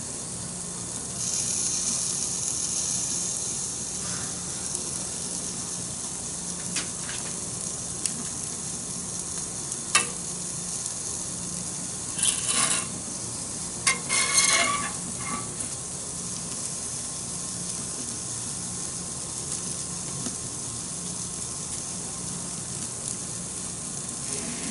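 Steady hiss of an Ooni pizza oven's gas burner flame, with a sharp click about ten seconds in and short bursts of metal scraping and clatter a couple of seconds later as a metal turning peel shifts the pizza on the hot stone.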